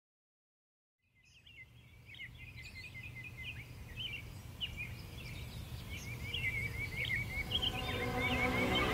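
Birds chirping and trilling, fading in about a second in over a low steady hum. Near the end, a music track begins to swell in underneath.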